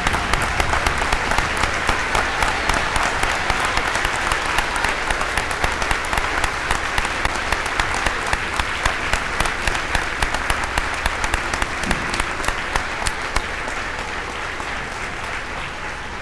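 A large audience clapping in sustained applause, dense at first and thinning and fading over the last few seconds.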